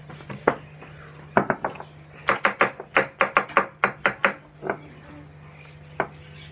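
Metal spoon clinking against a glass jar and a plate as starch is scooped out and tapped off. There are a few single clinks, then a quick run of about a dozen in the middle.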